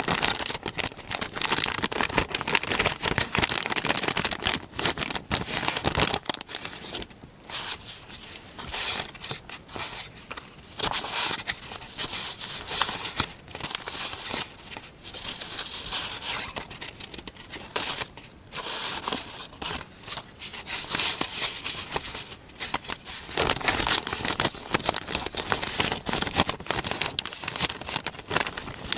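Close-miked paper handling for a scrapbook collage: an irregular run of paper crinkling and tearing, with brief quieter gaps.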